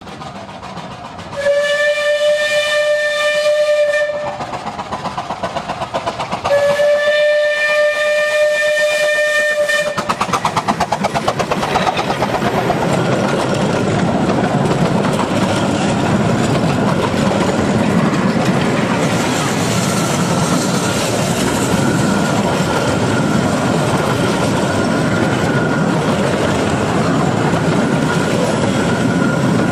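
A 15-inch-gauge Romney, Hythe & Dymchurch Railway steam locomotive sounds two long whistle blasts. Then the train passes: a quick rapid clatter about ten seconds in, followed by a long rake of carriages rolling past with a clickety-clack over the rail joints and a faint squeal.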